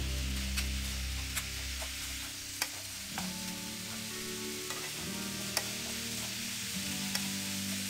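Chanterelle mushrooms sizzling in a frying pan as a spatula stirs them, with a few sharp knocks of the spatula against the pan.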